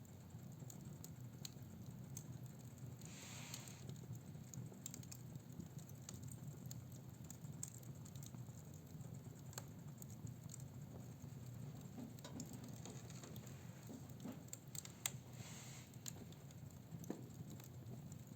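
Fire crackling in a fireplace: faint, irregular pops and snaps over a steady low hum, with two brief hisses, about three seconds in and near the end.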